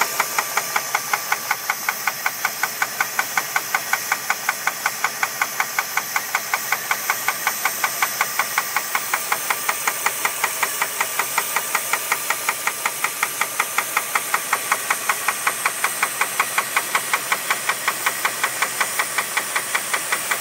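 2001 Jeep Grand Cherokee's 4.7-litre V8 running at a steady speed with a sharp, even knock about four to five times a second, which the owner suspects may be rod knock.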